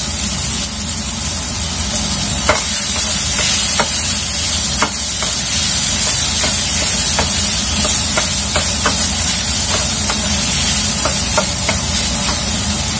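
Minced chicken and mixed vegetables sizzling steadily in a hot wok as they are stir-fried until cooked. From about two and a half seconds in, a wooden spatula taps and scrapes against the pan over and over, at an uneven pace.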